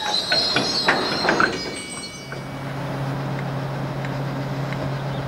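Loaded coal hopper wagons rolling past with high-pitched wheel squeal and a few sharp clanks. About two seconds in this gives way to the steady low drone of a British Rail heavy freight diesel locomotive's engine as it approaches.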